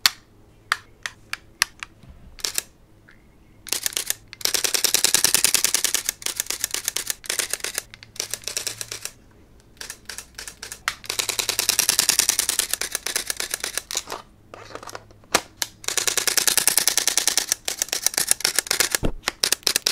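Canon camera shutter firing: a few single shutter clicks, then three long runs of fast continuous burst shooting, each lasting several seconds, with a few single clicks between them.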